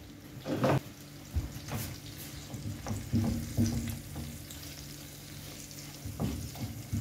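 Chopped mushrooms and onion frying in a non-stick pan over low heat, stirred with a utensil that scrapes and taps against the pan several times, about a second in, around the middle and near the end.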